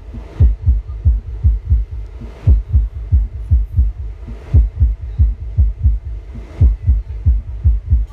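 Large outdoor sound system's subwoofers playing a bass-heavy test track during a sound check: deep thuds about four a second, with a brighter accent hit about every two seconds.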